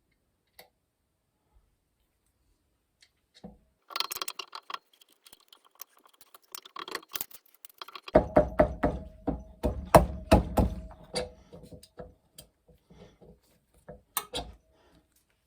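Metal clinking and a run of knocks as the grinder's drive wheel is fitted onto the motor shaft and worked tight with a hex wrench, with light metallic ringing behind the louder knocks. Scattered clicks come first, then a dense burst of knocks about eight seconds in that trails off into a few last clinks.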